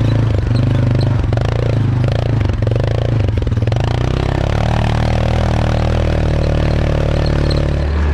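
Yamaha Rhino side-by-side's single-cylinder engine running as it crawls over loose rock, with stones clattering and scraping under the tyres and chassis for about the first four seconds, then a steadier engine note.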